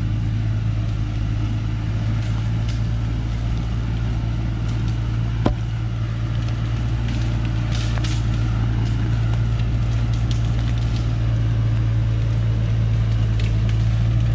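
Diesel engine of a truck loaded with acacia logs running steadily at low speed as it crawls up a steep dirt forest track, with one sharp crack about five seconds in and a few small snaps later.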